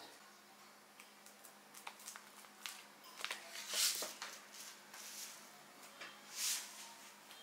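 Faint crackling and ticking from the hot, freshly baked cheese topping of stuffed pumpkins, with two brief soft hisses.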